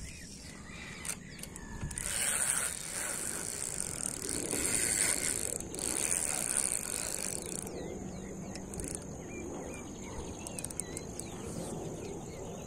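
Baitcasting fishing reel at work: a high whir as the spool turns, then the reel's mechanical clicking as line is wound back in.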